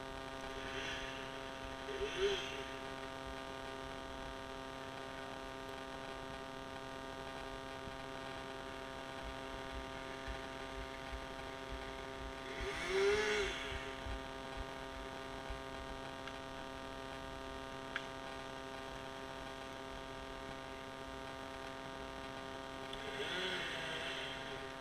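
A small engine running steadily at one constant pitch. Several times a voice calls out briefly in the distance, loudest about halfway through.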